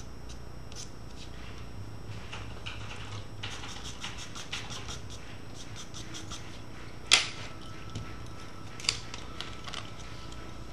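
Charcoal and pencil strokes scratching and tapping on paper in short bursts, busiest a few seconds in, with a sharp knock about seven seconds in and a smaller one near nine seconds, over a steady low hum.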